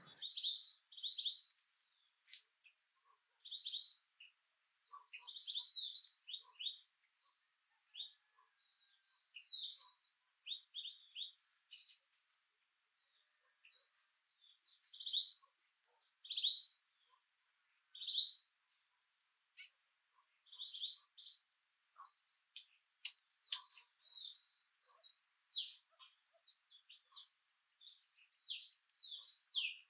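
Small songbirds chirping: short high chirps at irregular intervals, roughly one a second, with dead silence between them. A few sharp ticks fall about two-thirds of the way through.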